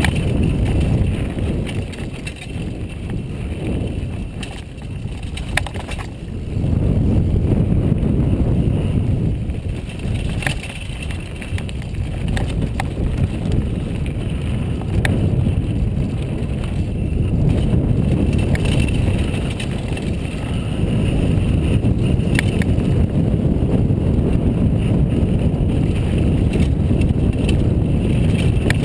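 Wind buffeting the microphone of a helmet-mounted camera on a downhill mountain bike, mixed with tyre rumble on the dirt trail. The rumble eases a few seconds in and then picks up again. A few sharp clatters mark the bike hitting bumps.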